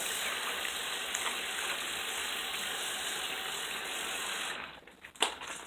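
Water running steadily from a sink tap, then shut off about four and a half seconds in, followed by a single sharp click.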